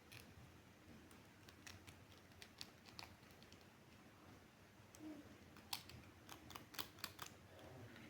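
Faint, scattered clicks and taps of small objects being handled, with a quick run of them about six to seven seconds in.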